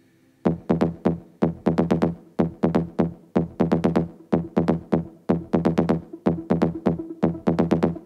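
Electronic dance music: after a moment of near silence, a rhythmic synth bassline with drum machine comes in about half a second in and repeats in an even, syncopated pattern of short pitched notes.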